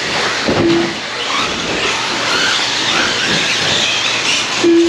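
Electric radio-controlled trucks racing: a steady mix of motor whine and tyre noise with rising and falling squeals. Two short beeps sound, about a second in and near the end.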